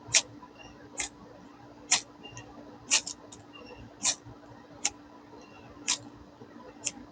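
A 3/8-inch ferro rod scraped with a steel edge of a SOG PowerPint multitool, eight short strokes about one a second, in an attempt to throw sparks.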